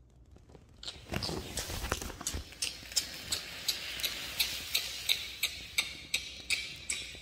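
Rhythmic knocking and rustling from a person's body jerking in a convulsive seizure. It starts about a second in with a few heavier thumps, then settles into about three sharp knocks a second over a steady hiss.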